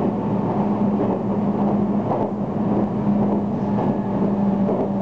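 Running noise inside a Meitetsu express train car at speed: a steady rumble of wheels on rail with a constant low hum and a few faint clicks about two seconds in.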